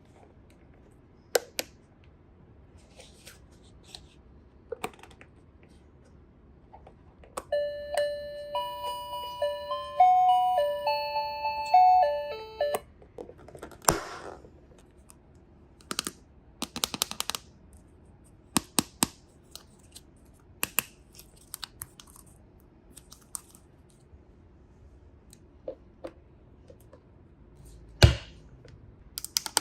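Clicks and taps of a plastic toy being handled, with a short electronic beeping tune of about five seconds in the middle, the kind of chip melody a toy washing machine plays when a button is pressed.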